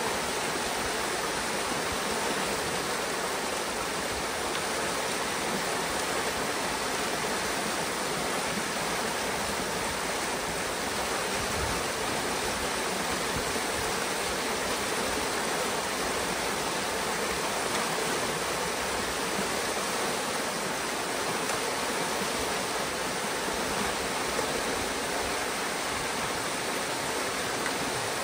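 Pond water rushing steadily through a breach torn in a beaver dam, a continuous foaming cascade of draining water.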